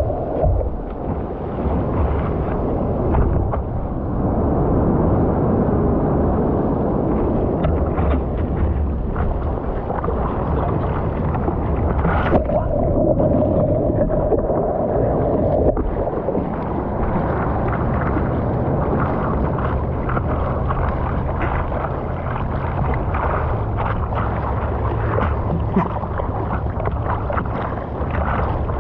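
Surf and wind noise on a camera out in the water: waves washing and churning steadily, with a steady held tone for about three seconds around the middle.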